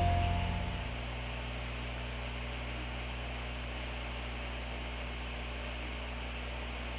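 The last notes of guitar music ring out and die away in the first second, leaving a steady electrical hum with a faint hiss.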